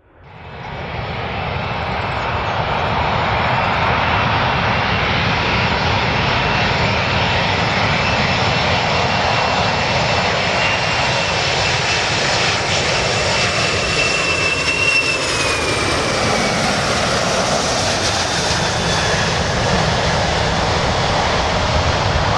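Airplane engines running, a loud steady noise with a high whine on top that drops in pitch about two-thirds of the way through. The sound fades in at the start.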